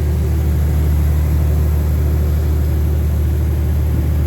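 Semi-truck's diesel engine pulling steadily under load up a long climb with about 22 tonnes, heard inside the cab as a steady low drone.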